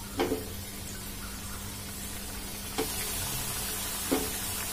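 Wheat-flour khajoori dough pieces frying in hot ghee in a kadhai, with a steady sizzling hiss that grows as more pieces go in. Three short knocks, one near the start, one about three seconds in and one just past four seconds, come as pieces drop into the pan.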